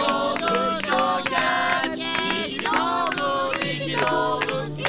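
A group of voices singing a song together over backing music with a steady beat and hand claps.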